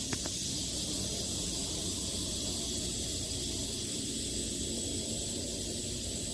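Steady background hiss and low hum with two faint clicks just after the start.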